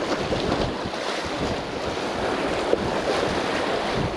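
Small waves washing and splashing among jetty rocks, with wind buffeting the microphone.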